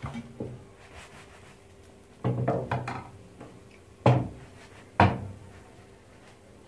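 Several sharp knocks and clatters of hard objects in a kitchen: a quick cluster about two seconds in, then two single loud knocks about a second apart.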